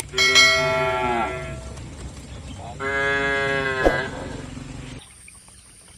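Cow mooing twice: a long call whose pitch sags slightly toward its end, then a second long moo about three seconds in, with a sharp click near its end.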